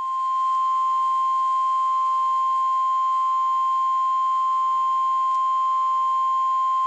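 Weather radio emergency alert tone: a single steady high-pitched tone near 1 kHz, the 1050 Hz warning alarm, held without a break. It signals that a severe weather warning message follows.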